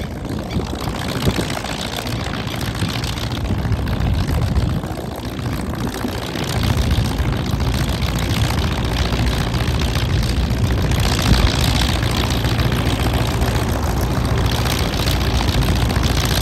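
Hino V8 diesel engine of a paddy-field tiller tractor running, deep and steady. It gets louder at the low end about six and a half seconds in.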